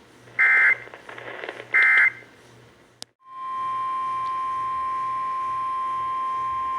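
Two short, loud bursts of Emergency Alert System end-of-message data tones about a second apart. About three seconds in there is a click, and then a steady single tone near 1 kHz sets in: the NOAA Weather Radio 1050 Hz warning alarm tone that opens the next alert.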